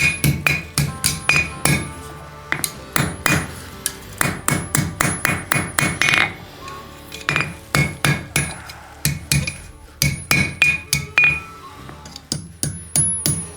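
Blacksmith's hammer striking hot 1/4-inch mild steel on an anvil in quick runs of ringing blows with short pauses between them, making final adjustments to forged scroll work.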